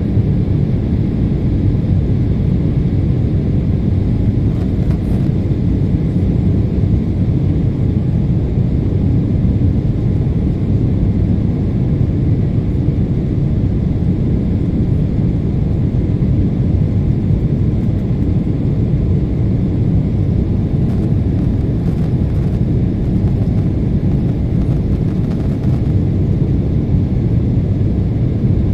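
Jet airliner cabin noise in the climb after takeoff: a steady, deep rush of engine and airflow heard from a seat by the wing, without change.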